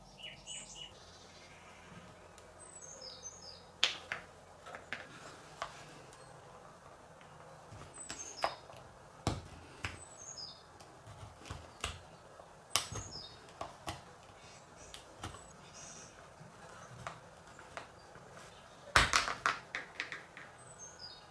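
Small clicks and taps from hands handling a thin plastic cup and a needle while piercing its base, with a cluster of louder clicks near the end and several short, high, falling squeaks scattered through.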